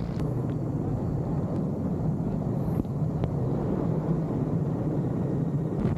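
A helicopter hovering low overhead: a steady, unbroken rotor and engine noise.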